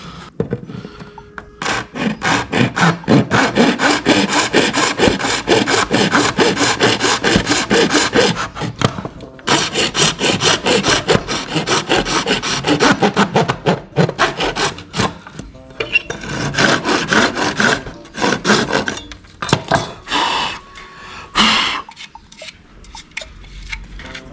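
Hand file scraping back and forth in rapid strokes, shaving down a battery adapter so that it will fit. It comes in long runs broken by short pauses, with a last sharp stroke near the end.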